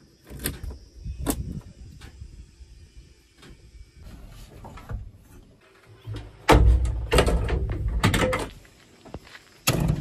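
Clicks, clunks and rattles of a JCB backhoe loader's cab door and window latch being handled. A louder stretch of rattling knocks begins about six and a half seconds in and lasts about two seconds, and a sharp clunk comes near the end.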